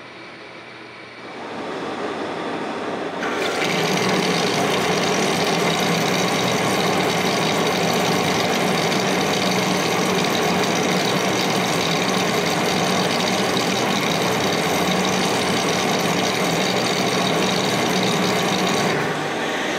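Monarch engine lathe taking a heavy turning cut on a metal bar, with chips breaking off the cutting insert: a loud, steady machining noise. It comes in about a second in, reaches full level at about three seconds and cuts off near the end.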